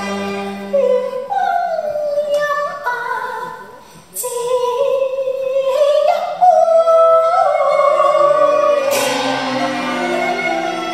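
A woman singing Cantonese opera (粵曲) with instrumental accompaniment: one long, sliding, ornamented vocal line, broken by a brief pause just before four seconds in.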